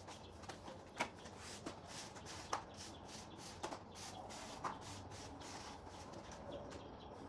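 A broom sweeping, its bristles scratching in a steady low swish, with a few sharp ticks spread through it.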